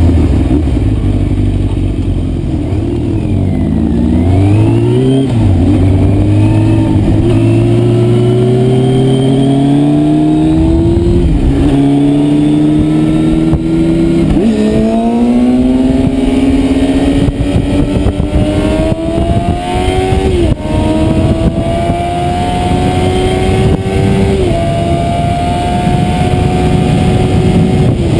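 Yamaha Thundercat (YZF600R) inline-four engine, heard from on board, slowing at first and then accelerating hard. Its pitch climbs and drops back with each of about five upshifts. Wind noise on the microphone grows as speed builds.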